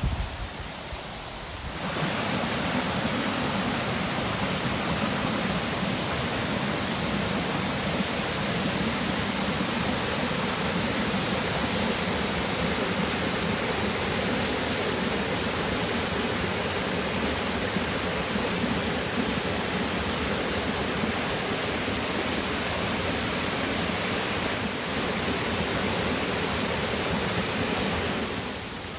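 Steady rushing of a 15 m straight-drop waterfall, cutting in about two seconds in and dropping away shortly before the end.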